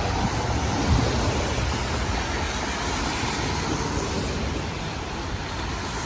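Steady road traffic noise, an even rumble and hiss with no siren wail left in it.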